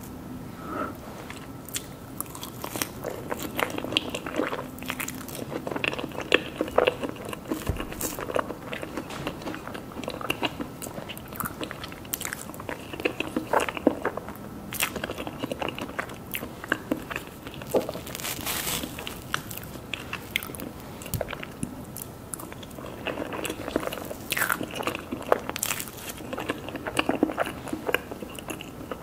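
Someone biting and chewing mousse cake, with irregular crunchy clicks and crackles throughout.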